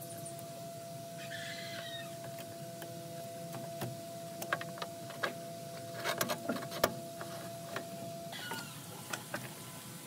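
Scissors snipping and tugging at old fabric and wire lining a cab roof, heard as a handful of sharp clicks in the middle. Birds call twice in the background, and a faint steady hum runs under it all.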